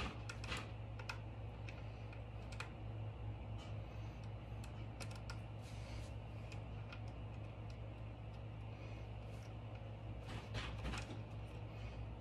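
Scattered light clicks and taps of a wrench and terminal bolt as the negative cable is fastened onto a motorcycle battery. The clicks come in small clusters a few seconds apart, over a steady low hum.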